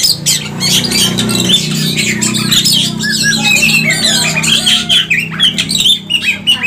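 Several caged oriental magpie-robins singing and calling at once: a dense run of quick chirps, whistles and harsher squawking notes, over a steady low hum.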